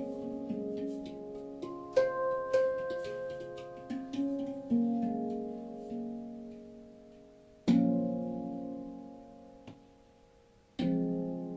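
Manik handpan tuned to the F#2 Nordlys scale, played slowly by hand: single notes struck with the fingertips, each ringing and dying away slowly. Two strong notes in the second half are left to ring out.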